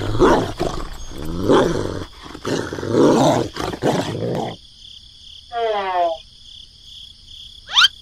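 Dog barking and growling in rough bursts for about four seconds. Then a short falling pitched glide comes about six seconds in, and a quick rising glide near the end.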